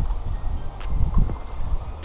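Low rumble of wind buffeting the microphone, with irregular short clicks and splashes as a hooked wels catfish thrashes at the surface close to the bank; the loudest swell comes about a second in.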